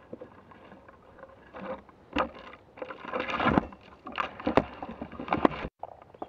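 Irregular scraping, rustling and knocks from a climber moving about in a eucalyptus, gear and bark rubbing close to the microphone. The sound cuts out sharply for a moment near the end.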